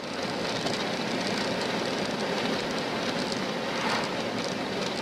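Steady road and wind noise of a car travelling at highway speed, heard from inside the cabin.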